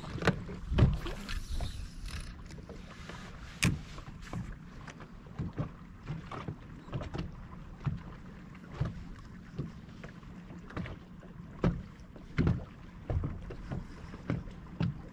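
Small waves slapping irregularly against a fishing boat's hull, heard as uneven short knocks over a low, steady hum.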